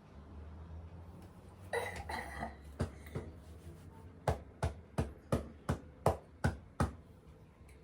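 A hand patting a person's back eight times in a steady rhythm, a little under three pats a second, after a short rustling burst about two seconds in: back-tapping to ease a cough.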